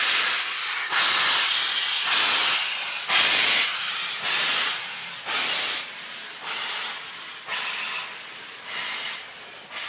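BR Standard Class 4 2-6-0 steam locomotive No. 76084 giving off rhythmic bursts of steam hiss, about one or two a second, loud at first and growing fainter through the rest.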